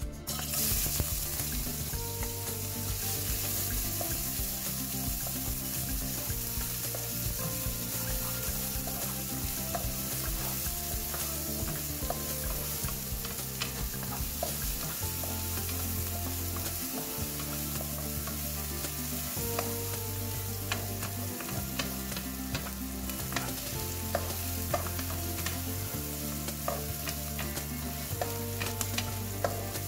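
Chopped garlic and onion frying in hot oil in a non-stick wok with a steady sizzle that starts about half a second in as they hit the pan. A wooden spatula stirs them, with small clicks and scrapes against the pan.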